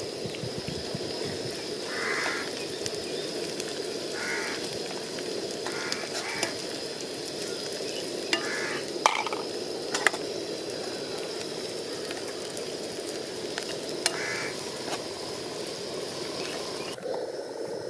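Food sizzling as it fries in a pan while being stirred, with a few sharp clicks of the stirring utensil against the pan.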